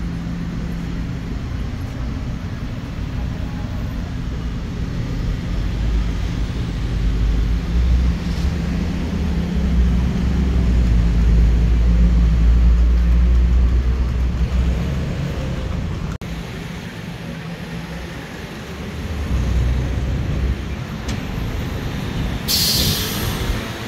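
City street traffic: a steady low rumble of engines that swells for several seconds in the middle as heavy vehicles pass. Near the end comes a short burst of air hiss from a bus's air brakes.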